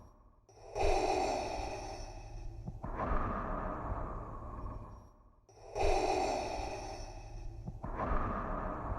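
Darth Vader's mechanical respirator breathing, the Star Wars sound effect made by breathing through a scuba regulator: slow, even breaths in and out, one full cycle about every five seconds, with a brief pause at the start and again about five seconds in.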